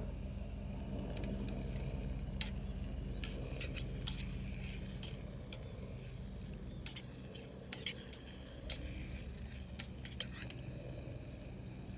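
Metal camp cookware being handled: scattered light metallic clinks and rattles over a steady low hum.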